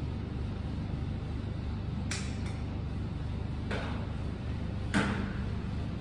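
A few sharp clicks and knocks, four in all, the loudest about five seconds in, over a steady low hum.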